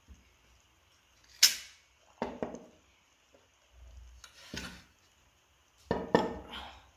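Glass serving bowls and a metal spoon clinking and knocking as the bowls are moved and set down on a table: a handful of separate clinks, the sharpest about a second and a half in and a small cluster near the end.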